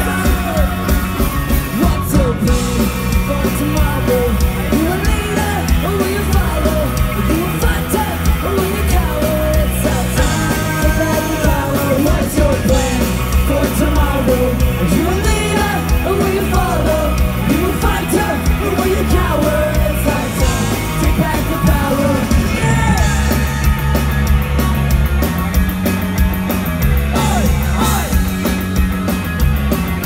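Ska punk band playing live, loud: electric guitars, bass and drums heard from the crowd, with voices yelling and singing over the music.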